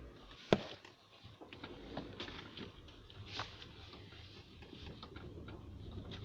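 Irregular sharp knocks from a Honda Civic 4D's front end, the loudest about half a second in, with smaller ones scattered after it over a low rumble. The knock persists though the parts have been replaced and a Ram bushing fitted to the steering rack, which the owner suspects lies somewhere around the rack.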